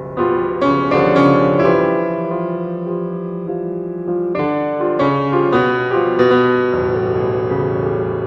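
Piano music: a few quick runs of notes and chords, struck in two groups, each note left to ring and fade.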